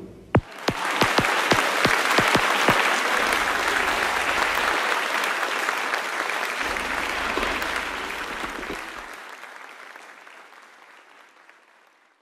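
Crowd applauding: a few sharp separate claps at first, then a full round of applause that gradually fades away near the end.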